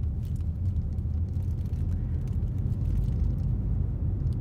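Steady low rumble of background noise with a few faint clicks.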